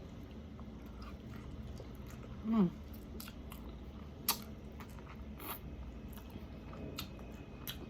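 Quiet chewing of spicy chicken wings, with scattered wet mouth clicks and smacks, and one short falling 'mm' from the eater about two and a half seconds in.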